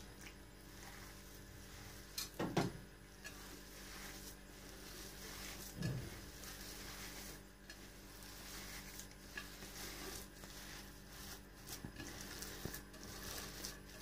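Hands rubbing and squeezing damp barley grits and semolina in a stainless-steel bowl, working in a little water to bind the dough: a faint scratchy rustle with small clicks, and two dull knocks about two and a half and six seconds in.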